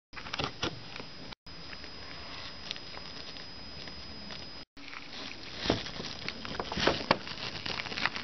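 Steady camera-microphone hiss with a thin high whine, broken twice by brief dropouts, with scattered small clicks and taps from plastic toy figures being handled, more of them near the end.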